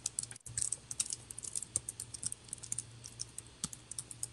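Typing on a keyboard: a quick, irregular run of light key clicks, with a low steady hum underneath.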